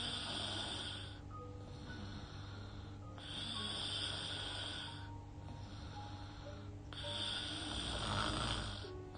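A sleeping woman snoring through her mouth: a breathy, hissing breath about every three and a half seconds, three in all, the last near the end heavier, with a low snore. Faint background music with short held tones runs underneath.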